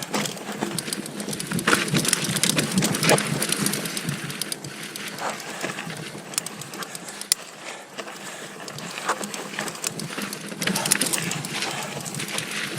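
Giant Stance 2 mountain bike descending a steep dirt trail: tyres grinding over dirt and rocks, with the bike rattling and knocking in quick, irregular clicks.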